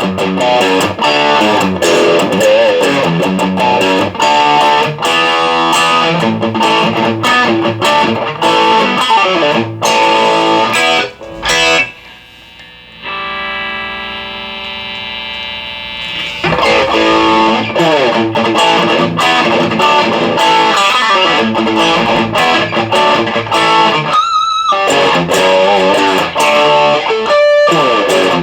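ESP M-3 electric guitar played through a Marshall DSL1 all-valve amp: quick riffs and lead lines. Near the middle a held chord rings for about three seconds before the playing picks up again.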